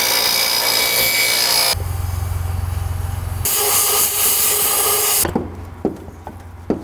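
A bench grinder grinding the cut end of a stainless steel tube, then a steady low hum, then a compressed-air blow gun blasting through the tube for about two seconds. It ends quieter, with a few light metal clicks as the tube is handled.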